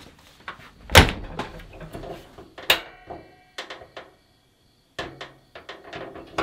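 Knocks and clunks of gear being handled and put away, with a loud thump about a second in and another sharp knock just before the three-second mark.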